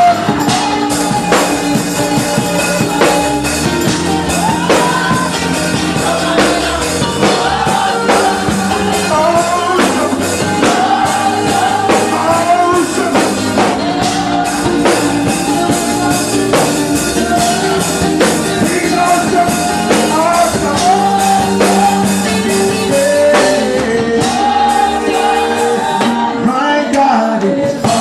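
Live gospel praise music: a band playing a steady beat with a voice singing a wavering melody over it.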